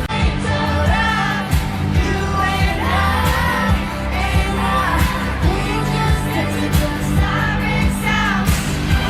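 Pop song performed live: a female singer's voice gliding up and down over a steady drum beat and deep bass.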